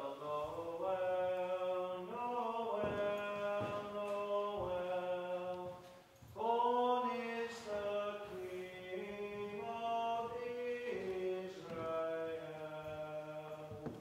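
Slow, chant-like singing of long held notes over a steady low drone, in two phrases with a short break about six seconds in. A few faint knocks come in the first phrase.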